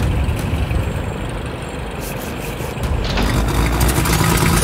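Turboprop engine of an agricultural spray plane starting up and running with its propeller turning: a low rumble that grows louder about three seconds in, with a high whine rising near the end.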